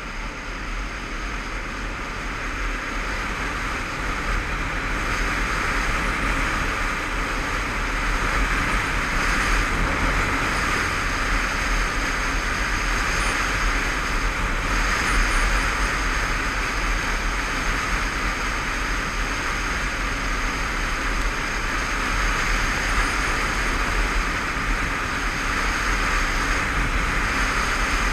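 Riding noise of a Honda CBF500 motorcycle on the move: a steady rush of wind over the helmet-camera microphone with engine and road rumble underneath, growing louder over the first several seconds as the bike picks up speed, then holding steady.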